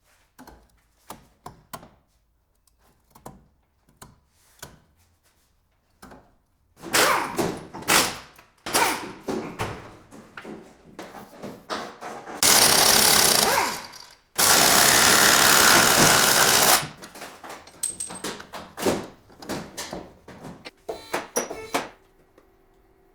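Workshop tool sounds: scattered metal clicks and clanks, then a stretch of loud knocking and clatter with two runs of about two seconds each of a rapid hammering impact wrench, typical of taking apart a front strut assembly.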